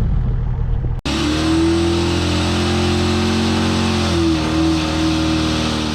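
Turbo-diesel Land Cruiser engine running through a custom stainless exhaust: a low rumble, a sudden cut about a second in, then a steady engine drone whose pitch dips slightly about four seconds in.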